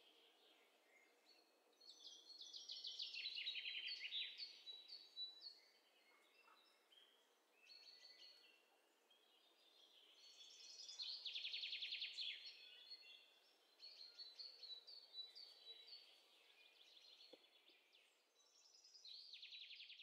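Faint songbird song: four separate phrases of rapid repeated high notes, the first two each lasting about three seconds, with quiet gaps between them.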